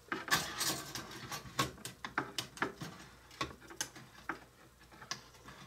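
A metal utensil clicking and scraping against a small baking pan inside a toy Easy Bake oven while working the pan out of the oven slot: a string of light, irregular taps and clicks.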